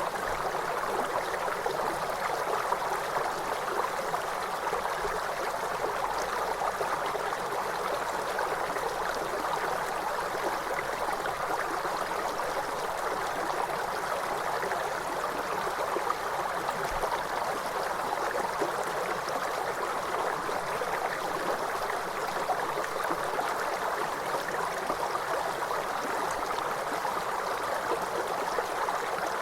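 River water flowing over rocks: a steady, even rush of babbling stream water.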